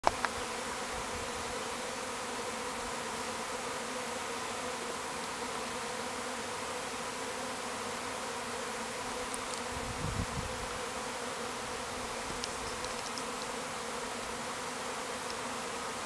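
A swarm of honeybees in flight: thousands of bees giving a steady, dense buzzing drone. A sharp click at the very start and a brief low rumble about ten seconds in.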